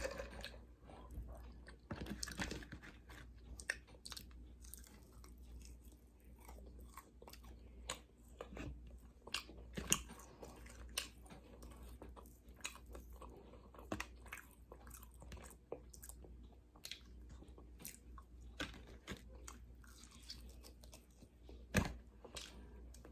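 A person chewing and crunching fried chicken and glazed donut, heard close up as faint, irregular crunches and mouth clicks.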